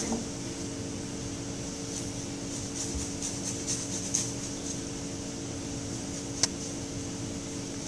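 Faint scraping strokes of a citrus zester grating lime peel, several in quick succession about three to four seconds in, over a steady low hum; a single sharp click comes late on.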